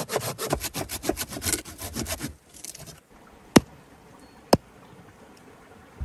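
Hand saw cutting through a dry log with quick back-and-forth strokes, which stop a little over two seconds in. Then two sharp clicks about a second apart.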